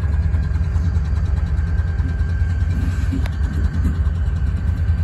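Steady low rumble of idling diesel-electric freight locomotives, with a thin steady whine above it and one faint click a little past the middle.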